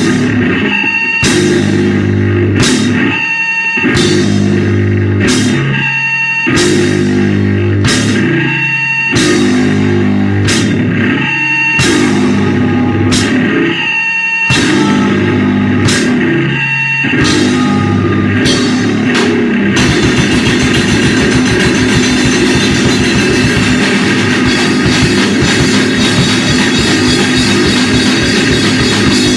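Live powerviolence band playing loud distorted guitar and drums in stop-start bursts, about one chunk every second with short breaks. About twenty seconds in it breaks into a fast, continuous section of rapid drumming under the guitar.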